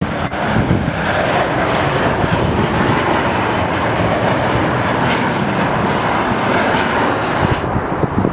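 Boeing 737 turbofan engines on landing approach: a loud steady jet rush with a high fan whine over it. The sound cuts off abruptly shortly before the end, giving way to a duller rumble.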